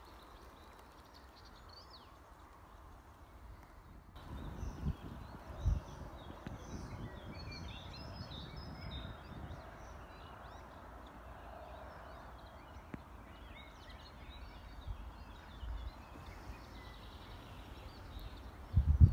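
Outdoor ambience of many small birds chirping and singing, with gusts of wind buffeting the microphone now and then.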